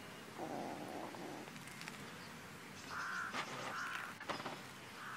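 Kitten chewing a mouse, with a few sharp crunches about three and a half to four seconds in. Harsh, drawn-out animal calls come about half a second in and again twice between three and four seconds.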